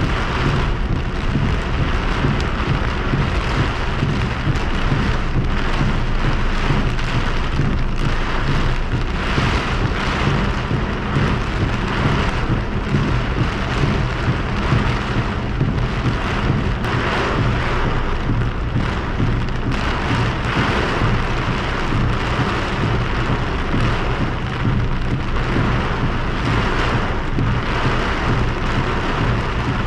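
Heavy rain beating steadily on a car's roof and windshield, heard from inside the cabin, with a low steady hum from the moving car underneath.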